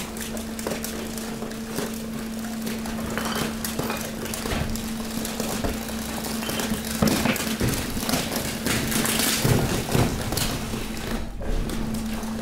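Hydraulic garbage press compacting a load of household waste: a steady machine hum under a continuous crackling, cracking and crunching of plastic, bags and wood being pushed and squeezed, loudest and densest about seven to ten seconds in.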